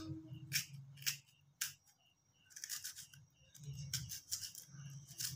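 Kitchen knife cutting through a raw red onion held in the hand: a string of short crisp cuts, some single and some in quick runs.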